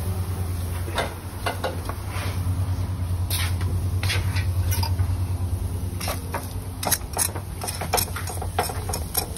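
Barbecue fire crackling with scattered sharp pops and sizzles, the pops coming thicker in the last few seconds, over a steady low rumble. The fire is burning too hot.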